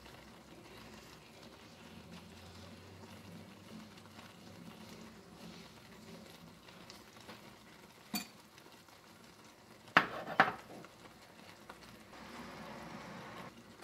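Spinach purée cooking quietly in a stainless steel frying pan over a medium flame. There is a faint click about eight seconds in, then two sharp knocks against the pan about ten seconds in.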